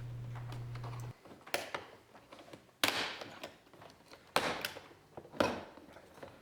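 Plastic power-window switch panel being pried up off a Nissan Altima door trim: four sharp snaps roughly a second apart as its retaining clips pop free.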